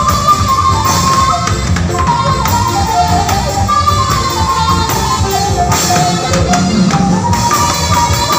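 Background music with a steady beat and a melody that steps up and down.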